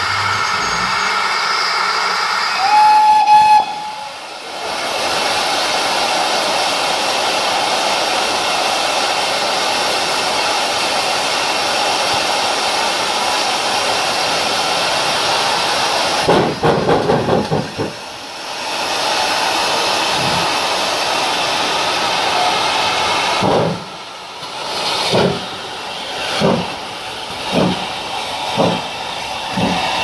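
Steam hissing steadily from GWR Manor class locomotive 7822 Foxcote Manor, with a short steady whistle toot about three seconds in and a brief flurry of quick exhaust beats midway. Near the end the locomotive starts away, its exhaust beats slow at first and quickening.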